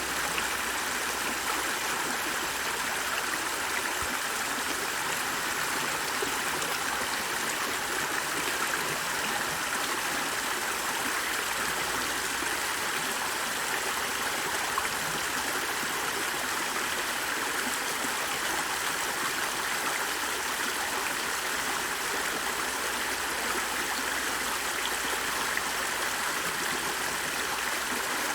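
A stream of flowing water running steadily, an even, unbroken rush with no change throughout.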